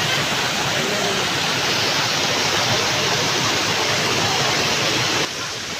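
Waterfall's rushing water, a steady loud rush. It drops suddenly to a lower level about five seconds in.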